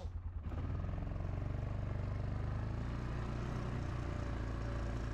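Yamaha Kodiak 450 ATV engine running. It starts with an even pulsing beat and from about half a second in turns steadier and fuller.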